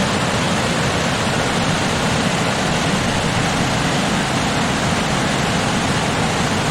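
Waterfall: water pouring and crashing down, a steady, even rushing noise with no music over it.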